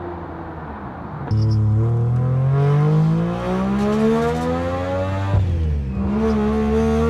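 Three-rotor rotary engine of a turbocharged Mazda RX-7 pulling hard under acceleration. It gets suddenly louder a little over a second in, rises in pitch for about four seconds, drops at a gear change about five seconds in, then climbs again.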